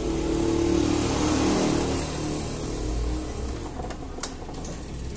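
Yamaha Mio Soul i 125 scooter's 125 cc single-cylinder four-stroke engine running, briefly revved in the first two seconds and then easing back toward idle. Two sharp clicks about four seconds in.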